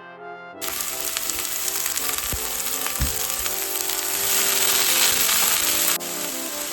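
Food sizzling in hot oil in a frying pan. The sizzle starts suddenly about half a second in, with a couple of dull knocks midway, and drops in level near the end.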